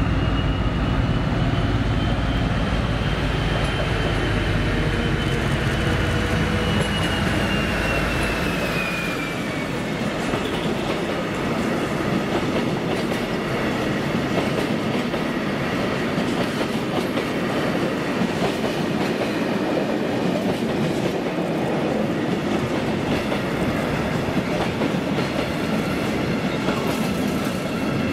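Colas Rail class 56 diesel locomotive passing at the head of a fuel tank train, its heavy engine rumble and a high whine that falls in pitch as it goes by about nine seconds in. After that, a long rake of bogie tank wagons rolls past with steady wheel rumble and rhythmic clickety-clack, dropping away near the end.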